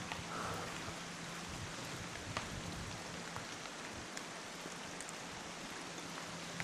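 Rain falling steadily, an even hiss with scattered sharp taps of drops landing close by.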